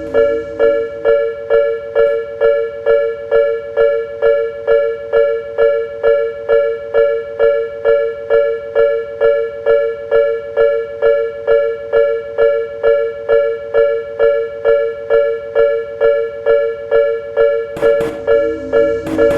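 Japanese railway level-crossing alarm: an electronic two-tone bell ringing evenly, a little over two strikes a second, the warning that a train is approaching. Near the end, a lower hum with a hiss and a couple of sharp clicks joins it.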